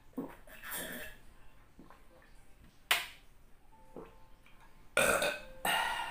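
A man swallowing water from a glass, then a sharp clink of the glass set down on the table a little before three seconds in. Near the end, two loud burps after the meal.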